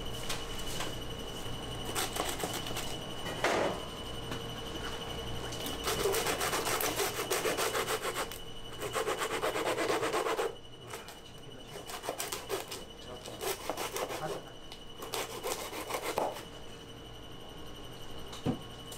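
A blade sawing back and forth through a large tuna carcass, in several spells of rapid rasping strokes, the longest about six seconds in.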